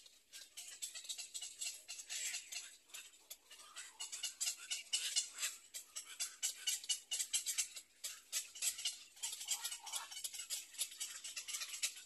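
Black-crowned night heron chicks begging at the nest: a rapid, dry clicking chatter in uneven bursts.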